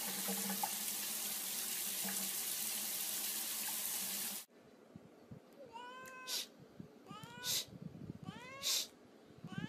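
Water running steadily from a tap, which cuts off abruptly. Then a cat meows four times, about once a second, each meow rising and falling in pitch and followed by a short, sharp noise.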